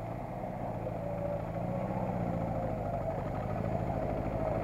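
Land Rover engine running as the vehicle drives through a muddy off-road track toward the listener, growing steadily louder as it approaches.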